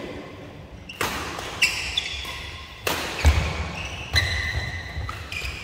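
Badminton rackets striking a shuttlecock during a doubles rally, four sharp hits about a second apart. Short high squeaks come between the hits, from shoes on the court mat.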